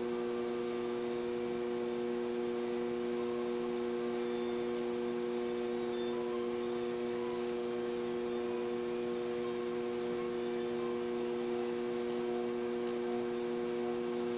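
Steady electric hum of a running potter's wheel motor, a few even tones held without change.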